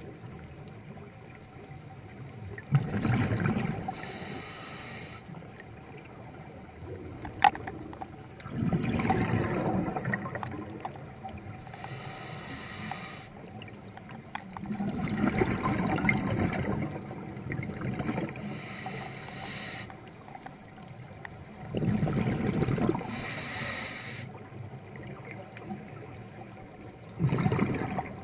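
Scuba diver breathing through a regulator underwater: a hiss on each inhale and a rumbling burst of exhaled bubbles about every six seconds, five in all. A single sharp click sounds about seven seconds in.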